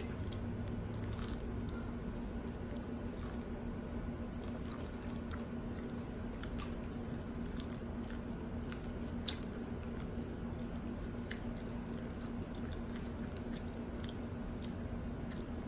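A person chewing a Burger King taco with its fried, crunchy shell, with small scattered crunches and mouth clicks. A steady low hum runs underneath.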